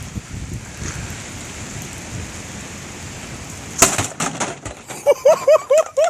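Steady rain hiss, then a single sharp knock about four seconds in and a few lighter knocks after it. Near the end a person laughs in short, rhythmic bursts.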